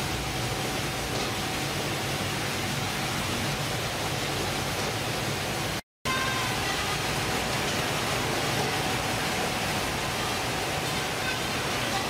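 Steady machinery noise of a ship's fish-processing line: conveyors and processing machines running. The sound cuts out completely for a moment about six seconds in, then resumes.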